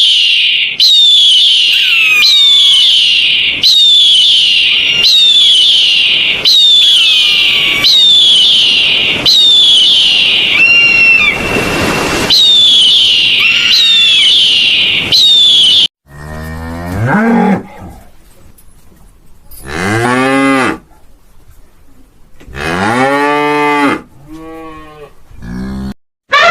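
A loud, high-pitched call that falls in pitch repeats about every second and a half for most of the first half. Then cattle moo four times, each moo a long low call that swells and falls away.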